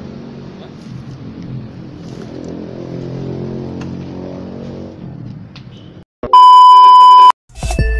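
Yamaha R15 V2's 150 cc single-cylinder engine running as the bike is ridden, its pitch rising a little and then easing. The engine cuts off suddenly about six seconds in, and a loud steady electronic beep follows for about a second; music starts near the end.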